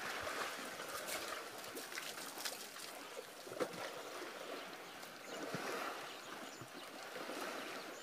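Quiet waterhole ambience of African elephants wallowing and moving in wet mud and water, a soft steady sloshing haze with a few faint knocks and a few faint high chirps.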